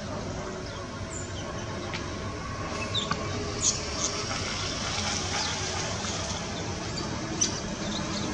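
Steady background hiss and rumble of open-air ambience, with a few short, high chirps or squeaks scattered through it.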